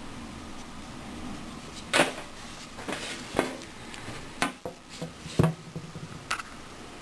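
Irregular knocks and clicks, about eight in all, as the hard plastic body of an Izhmash DIP-1200 hammer drill is handled; the drill's motor is not running.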